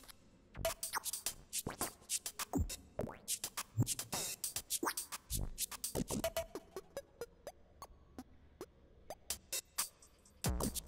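Electronic percussion soundtrack built from Logic 9 samples: irregular dry clicks, ticks and scratchy hits with a few deep thumps, and a fast run of short thin ticks from about six to nine seconds in.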